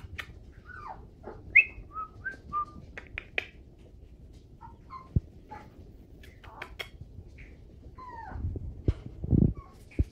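Four-week-old Chihuahua puppies squeaking and whining: many short high chirps, some sliding down in pitch, with a few soft knocks and a louder low sound near the end.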